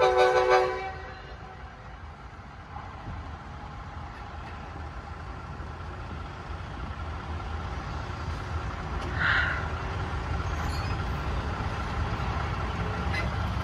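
Nathan K5LA horn on a Norfolk Southern EMD SD60E locomotive giving a short blast of about a second, a chord of several tones. It is followed by a low steady rumble of engines that slowly grows louder, with a brief sharper sound about nine seconds in.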